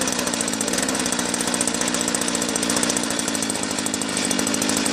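Small engine of a rotary tiller (soil cultivator) running steadily with a rapid, even pulsing.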